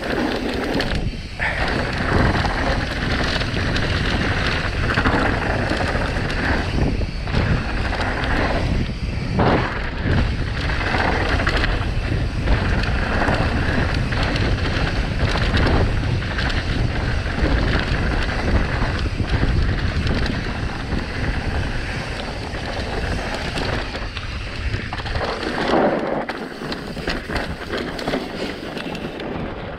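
Mountain bike descending a downhill trail at speed: wind buffeting the camera's microphone over tyres rolling on dirt, with occasional knocks from the bike.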